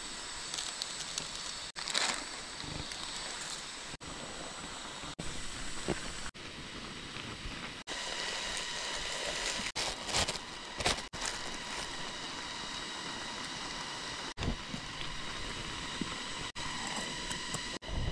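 Steady hiss of a portable butane canister stove burning under a small pot, with light crackling, cut into short pieces that drop out abruptly every second or two. A plastic bag crinkles about ten seconds in.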